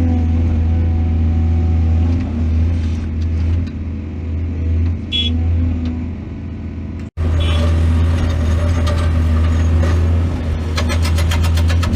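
Heavy diesel machinery engine running steadily with a deep low hum, its level dipping for a few seconds midway. There is a brief high squeak about five seconds in, then a sudden cut. Near the end a fast, even ticking joins the engine.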